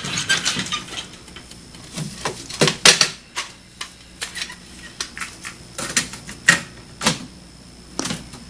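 Scattered, irregularly spaced clicks and light knocks of hands handling things on a stereo shelf.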